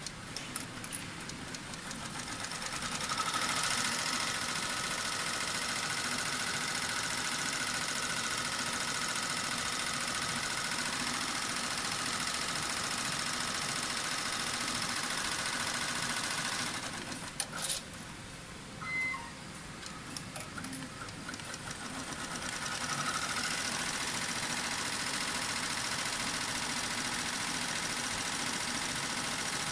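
Multi-needle embroidery machine stitching at speed on a cylinder attachment, a steady rapid mechanical running. About halfway through it slows and stops for several seconds with a few clicks, then runs back up to speed.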